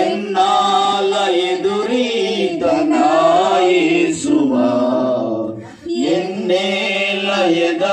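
Voices singing a slow Telugu penitential hymn together, with sustained notes and a short break for breath about six seconds in.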